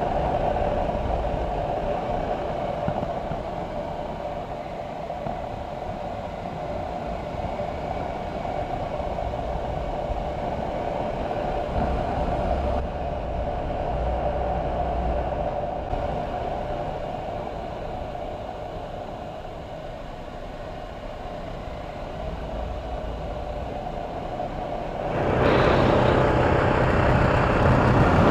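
Single-cylinder Romet ADV 250 motorcycle engine running steadily at cruising speed, heard from the moving bike together with road noise. Near the end the sound gets louder, with a rushing noise like wind sweeping over the bike.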